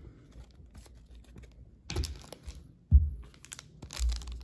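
Hands handling trading cards and a foil card pack on a table: scattered light clicks and taps, a sharp knock about three seconds in, and some wrapper crinkle near the end.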